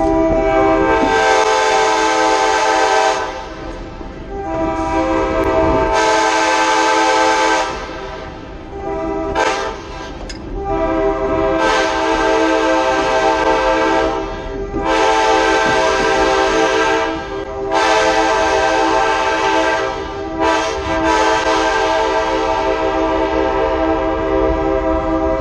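Train air horn blowing for a road grade crossing: several long blasts and a couple of short toots, then held steadily through the last few seconds as the train reaches the crossing.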